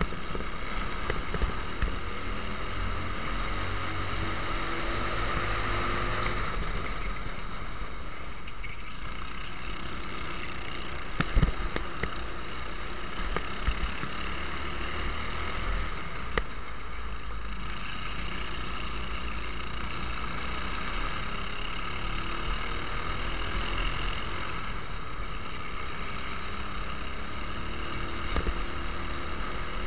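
Racing kart engine running at speed, heard on board with wind rushing over the microphone, its pitch rising and falling through the corners. A sharp thump about eleven seconds in stands out as the loudest moment.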